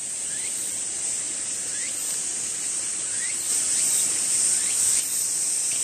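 Chorus of cicadas singing in a steady, high, shrill drone. Underneath it, a short rising chirp repeats about every second and a half.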